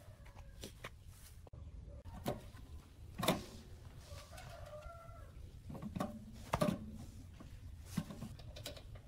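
Scattered sharp metal knocks and clinks as a finned compressor cylinder is handled and slid over the piston onto the crankcase, the loudest a little past three seconds in and again past six. A hen clucks briefly in the background near the middle.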